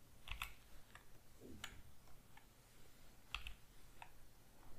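Faint, irregularly spaced clicks of a computer mouse and keyboard, several single presses.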